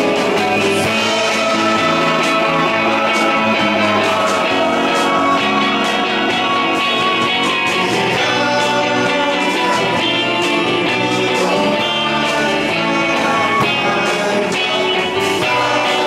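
A live band playing a song, with a man singing lead into a microphone over guitars and the rest of the band, amplified through a concert PA.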